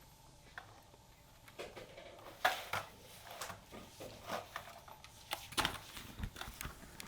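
Irregular clicks and knocks of small hard objects being handled, the loudest about two and a half seconds in, typical of plastic toy vehicles being moved and knocked together.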